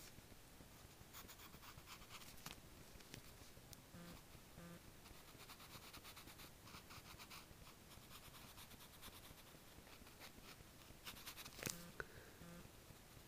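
Faint scratching of a graphite pencil sketching on lined notebook paper, in short strokes. A small sharp tap stands out a little before the end.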